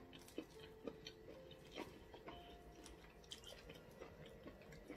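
Quiet chewing and mouth sounds of a person eating eba with banga soup by hand, heard as scattered short soft clicks.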